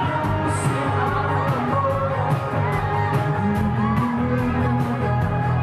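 A pop-rock band playing with a sung lead vocal over bass and guitar, the drums keeping a steady beat.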